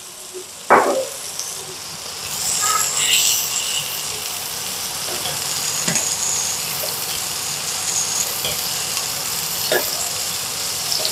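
Rump steaks sizzling in butter with thyme and garlic in a nonstick frying pan while a metal spoon bastes them; the sizzle grows louder about two seconds in. A brief sharp sound just under a second in, and a few faint clicks later.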